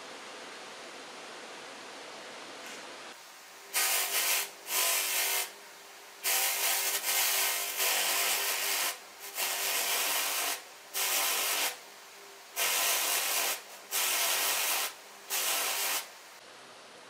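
A brass key is pressed against a spinning 220-grit sandpaper flap wheel to deburr and polish it, in about nine loud sanding passes that start about four seconds in, each half a second to a second long, over a steady hiss.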